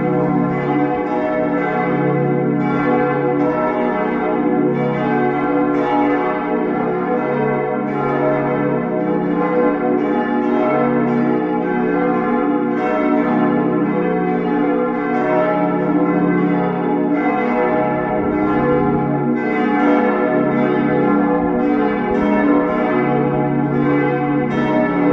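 Full peal of church bells: several swinging bells ringing together, their strikes overlapping in a dense, steady clangour with long sustained tones.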